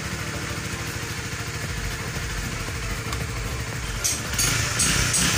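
Honda RS150's single-cylinder DOHC engine idling steadily, running with a newly fitted manual cam chain tensioner meant to cure the rattle of the stock automatic tensioner. About four seconds in the sound gets louder.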